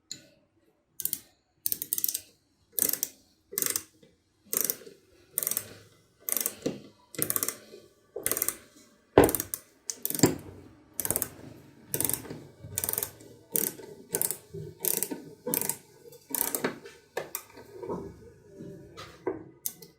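Ratchet clicking in repeated strokes, about one a second, each stroke a quick run of small clicks.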